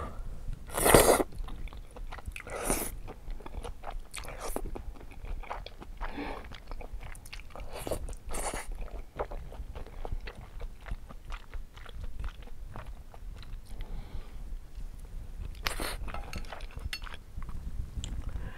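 Close-miked eating of spicy stir-fried glass noodles: a handful of loud, short slurps of the noodles among steady soft chewing and mouth clicks. A low, steady air-conditioner noise sits underneath.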